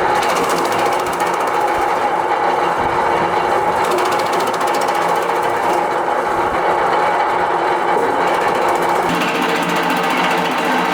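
Electric wood chipper with a four-knife rotor and 5.5 kW motor running, with a loud, steady, fast mechanical clatter and a steady hum; the sound shifts slightly about nine seconds in.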